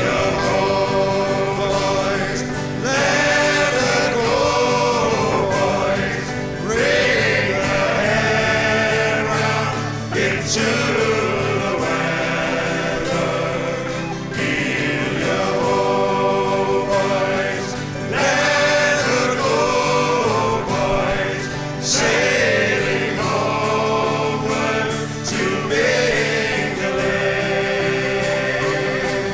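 Background music: a song with several voices singing over steady accompaniment.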